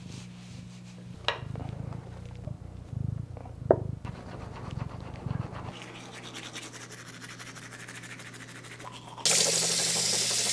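A cat purring, with a couple of sharp knocks, then teeth being brushed with a toothbrush in a fast, fine scrubbing. About nine seconds in, a sink tap comes on and water runs loudly into the basin.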